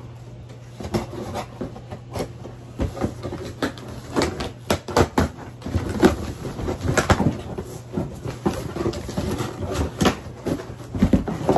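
Scissors cutting through the packing tape on a cardboard shipping box, then the flaps being pulled open and the packaging handled: a run of irregular rustles, scrapes and knocks of cardboard and plastic.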